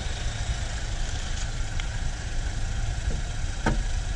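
Car engine idling close by, a steady low rumble with an even hiss over it, and a single short click near the end.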